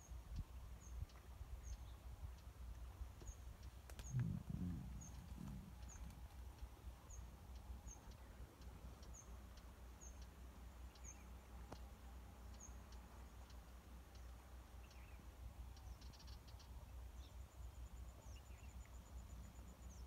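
A bird repeating a short, high chirp about once a second over a faint low rumble. A brief low rumble swells about four seconds in, and a fast, high trill starts near the end.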